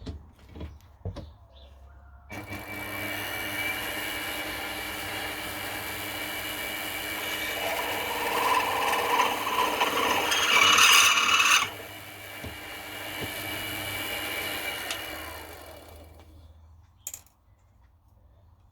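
Mini milling machine starting up and running with a steady whine while milling aluminium. It gets louder and harsher for about four seconds in the middle, then drops back, and the motor winds down and stops near the end. A few knocks come before it starts and a click after it stops.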